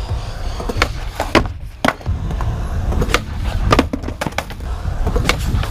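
Skateboard wheels rolling on concrete with a steady low rumble, broken by several sharp clacks of the board hitting the ground.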